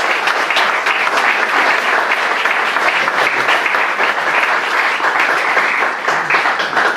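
An audience applauding steadily, dense clapping from a roomful of people welcoming a speaker to the podium.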